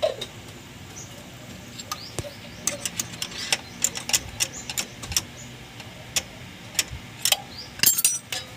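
Irregular light metallic clicks and clinks from a clutch pressure plate and disc being shifted by hand on the flywheel to centre the disc, thickest near the end. Birds chirp faintly behind.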